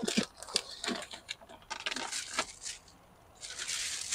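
Trash being rummaged through in a dumpster: scattered clicks and short rustles of plastic bags and cardboard being handled, then a longer, denser rustle near the end.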